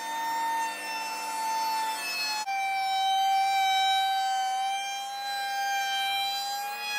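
DeWalt DW735 thicknesser planing a glued-up pallet-wood slab, a steady high-pitched machine whine made of many stacked tones. The pitch steps down slightly about two and a half seconds in.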